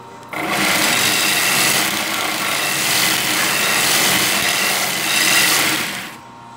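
Steel knife blade pressed against the running abrasive belt of a homemade belt sander driven by a sewing-machine motor: a loud, harsh grinding hiss that starts abruptly, holds for about six seconds, and stops as the blade is lifted, leaving the quieter steady hum of the running machine.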